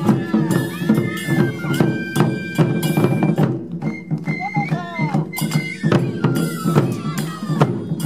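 Japanese taiko drum ensemble playing a lively piece, the big barrel drums struck in a dense, driving rhythm. Shinobue bamboo flutes play a high melody over the drums, held notes stepping from one pitch to the next.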